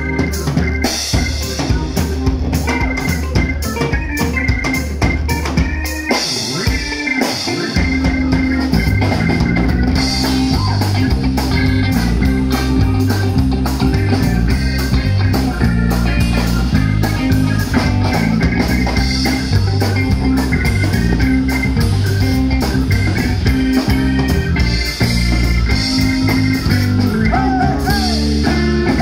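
Live band playing an instrumental passage: a drum kit keeping a steady beat under a moving bass line and other instruments. The bass drops out briefly about six seconds in, then comes back.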